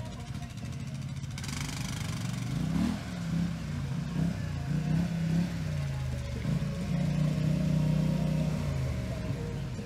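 ATV engine revving up and easing off several times, then holding steadier for a couple of seconds, getting gradually louder as the quad approaches.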